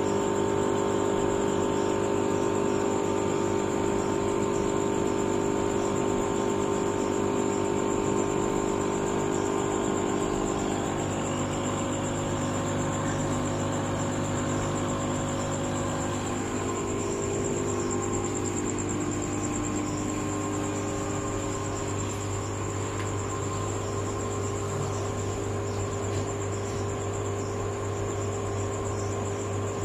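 Aquarium air pump humming steadily, with air bubbling through the tank.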